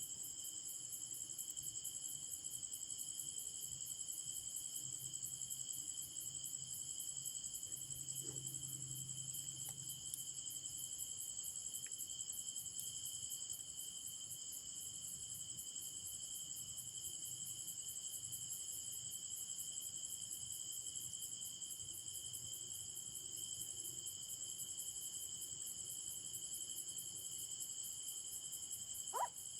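Night-time insect chorus: a steady, high, rapidly pulsing trill of many insects that does not change. About half a second before the end a single short, sharp sound cuts through, briefly louder than the chorus.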